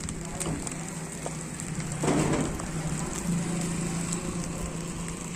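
Food sizzling and crackling in a hot pan over a steady low hum, with a louder rush of sizzle about two seconds in.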